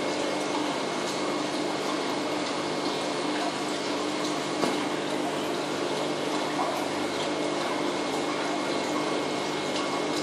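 Steady hum of aquarium pumps with an even rush of moving water, a few low tones held constant underneath. One brief faint tap about halfway through.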